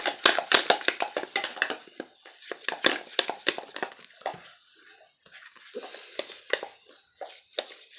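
Spoon stirring toothpaste-and-glue slime in a container, clicking and scraping against its sides: rapid taps for the first couple of seconds, then sparser ones.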